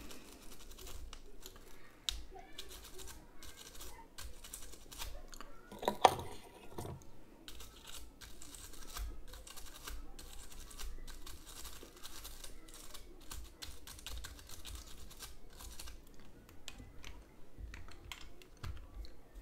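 Toothbrush bristles scrubbing inside a Nintendo Switch's USB-C charging port, a rapid scratchy clicking, to clean out a port that makes poor contact in the dock. A louder bump about six seconds in.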